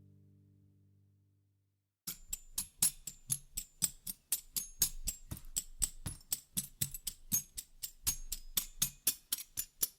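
Background music: a low held chord fades out, and after a short silence a fast percussion track of sharp taps, about five a second, starts about two seconds in.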